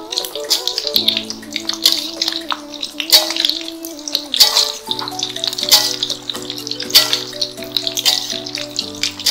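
Background music with held chords that change every few seconds and a steady beat, over the steady sizzle of fritters frying in shallow oil in a wok.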